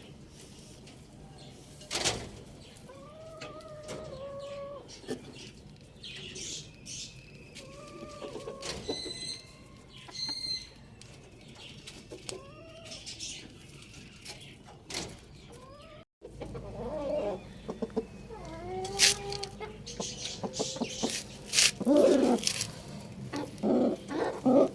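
Chickens clucking, with a string of short, arched calls spaced a few seconds apart and scattered sharp clicks and knocks among them.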